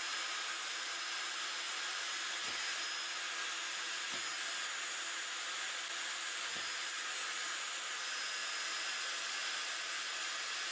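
Ryobi One+ cordless drill running steadily, drilling through the holes of a plastic watering-can rose to enlarge them so the rose won't clog. The even whir stops near the end.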